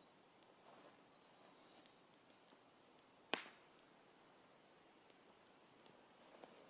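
A single sharp knock, short and loud, about three seconds in, with a few faint scattered ticks around it.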